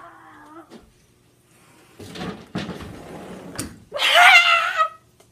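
A domestic cat gives one loud, long, wavering yowl about four seconds in. Before it come a couple of seconds of scuffling with a few sharp knocks.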